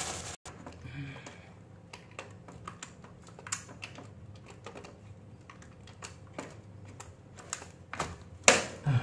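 Scattered light clicks and taps of hands working on plastic breaker and wiring parts of a consumer unit, with one louder knock near the end.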